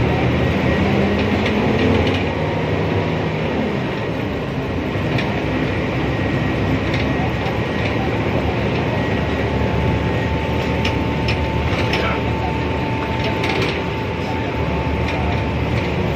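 Inside a moving city bus: a steady engine and road rumble, with rattling and clicking from the bus's fittings and a faint steady whine.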